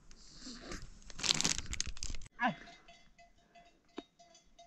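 Foil snack packet crinkling in a child's hands for about two seconds, then cutting off suddenly.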